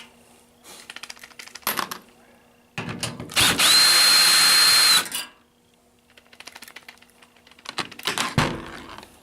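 Cordless drill with a Phillips bit spinning out a screw from a washing machine's top panel, one loud steady whir lasting about two seconds. Light clicks and knocks of handling the screws and drill come before and after it.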